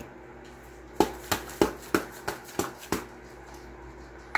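A plastic spice-rub shaker shaken over a brisket in quick strokes, a run of about seven sharp taps over two seconds starting about a second in.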